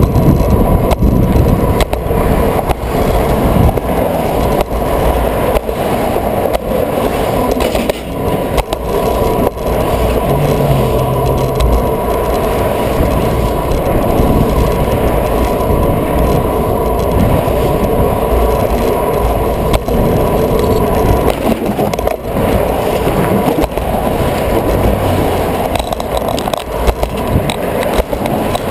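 Steady rolling road noise of a bicycle ridden over a concrete bridge sidewalk, heard through a handlebar-mounted camera, with many small knocks and rattles from bumps in the surface. Car traffic runs alongside.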